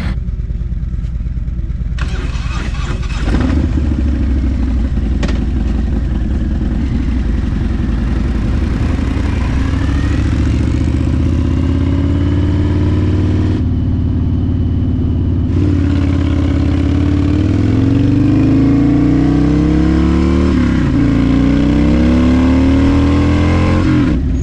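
Harley-Davidson V-twin motorcycle under way, the engine running and pulling through the gears with its pitch rising in repeated sweeps.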